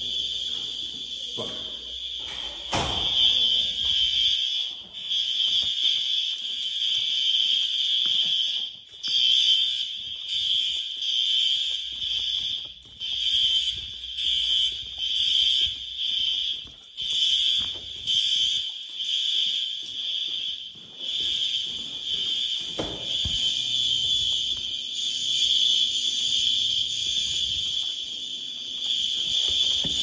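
School fire alarm horn strobes sounding a loud, high-pitched tone that pulses on and off with short gaps during a fire drill. Two thumps stand out, one about three seconds in and one near the end.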